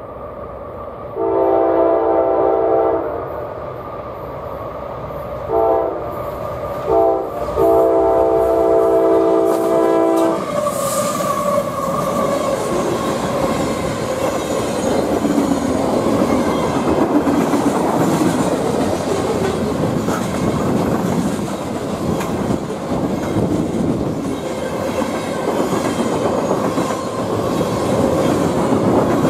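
Horn of a CSX GE diesel freight locomotive sounding for a grade crossing: a long blast, two short ones, then a long one held about three seconds. The locomotives then pass and a long string of mixed freight cars rolls by, wheels clicking over the rail joints.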